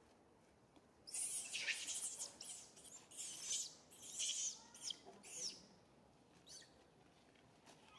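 A run of shrill, high-pitched chirping calls starting about a second in and lasting some four seconds, with quick sweeping notes, then a fainter call and a short one near the end.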